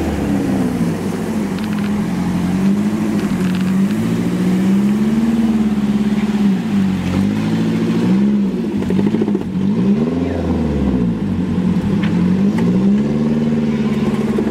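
Engine of a lifted short-wheelbase 4x4 off-roader revving up and down repeatedly under load as it climbs from grass onto a gravel bank, its pitch rising and falling every second or two.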